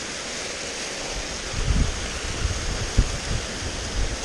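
Steady rush of a mountain stream tumbling down a small waterfall. From about a second in, low rumbles and a few knocks on the microphone break in over it, the sharpest about three seconds in.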